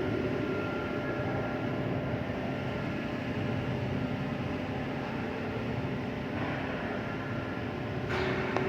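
Steady mechanical hum with a few faint held tones, and a short sharp clatter about eight seconds in.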